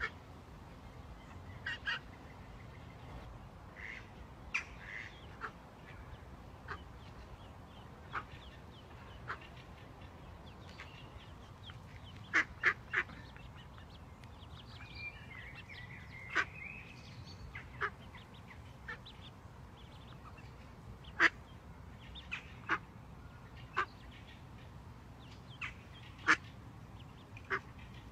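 Mallard hen and her ducklings calling: short, sharp calls scattered every second or two, some louder than others.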